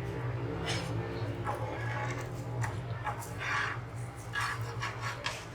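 Frozen roti on a hot tawa being handled, with several short soft rubbing and scraping sounds over a steady low hum.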